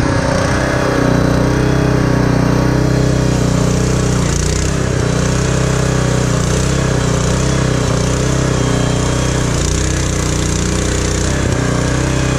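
Portable bandsaw mill's small gasoline engine running steadily at a constant speed.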